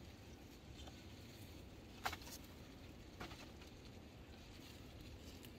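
Mostly quiet, with two light knocks, one about two seconds in and a softer one a second later: empty slatted wooden crates being handled and set down in grass.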